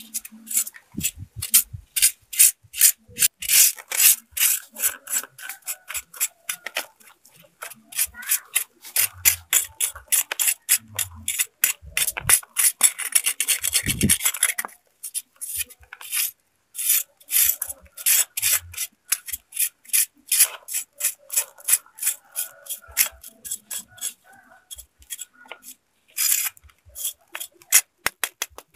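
Machete blade scraping the charred skin off a whole grilled snakehead fish on a stick, in many quick, irregular strokes, with one longer unbroken run of scraping about halfway through.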